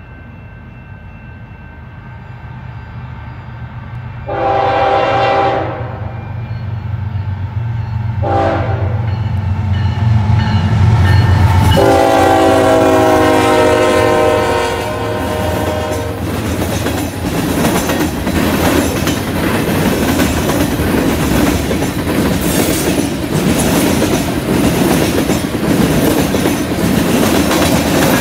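A CN diesel freight locomotive's horn sounds a long blast, a short one and a final long blast that drops slightly in pitch as the engine passes, ending the grade-crossing signal, over the rising rumble of its diesel engines. Then the freight cars roll past with steady wheel noise and clickety-clack over the rail joints.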